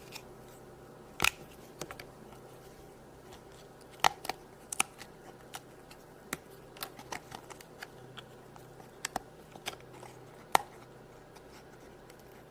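Small pieces being popped out of a punch-out card: scattered, irregular sharp clicks and snaps. The loudest come about a second in and about ten seconds in.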